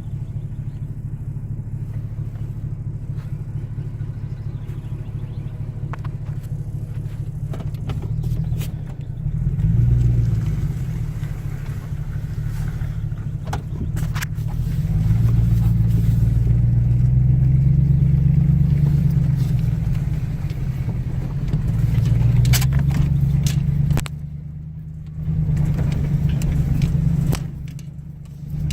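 Car driving: a low, steady rumble of engine and road noise that swells and eases several times and dips briefly twice near the end, with a few faint clicks.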